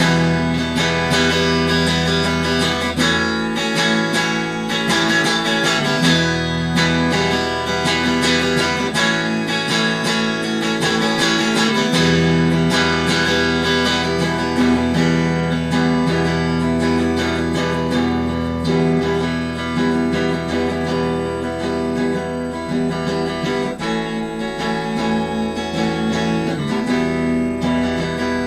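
Instrumental guitar rock played on a Squier Affinity Stratocaster through a Fender Frontman 15G amp: strummed, ringing chords with low notes that drop out and return every few seconds.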